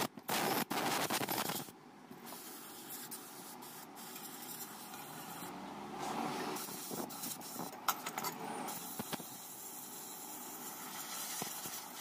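Compressed-air blow gun hissing in a few short blasts into an open refrigerator compressor shell, cutting off under two seconds in. After that comes quieter handling noise with a few sharp clicks as parts are moved.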